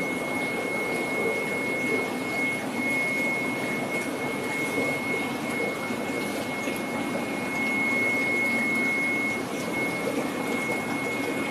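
Steady rushing hum of the fish tanks' water pumps and aeration, with a thin, steady high whine over it.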